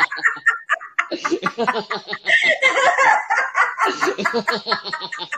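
Hearty laughter in a laughter-yoga exercise: a continuous run of quick ha-ha pulses, heard over a video call.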